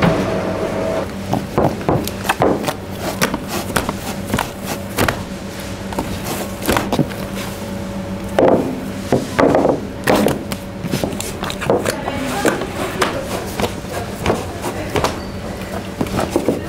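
A baker's hands working a large mass of proofed bread dough in a plastic tub: irregular knocks, slaps and handling noises as the dough is freed from the tub's sides and lifted out, over a steady hum of bakery machinery.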